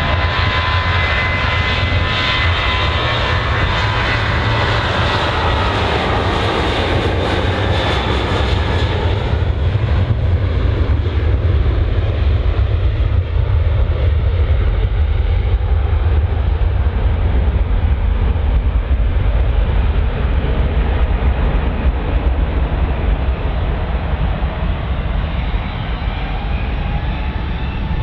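Airliner's jet engines running loud as it passes, with a whine that falls in pitch over the first ten seconds, then a steady low rumble.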